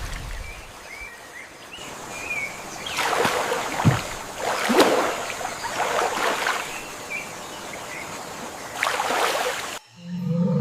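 Water splashing and rushing in several loud surges, with short bird chirps behind it. Near the end the sound cuts abruptly to a deep, held low tone.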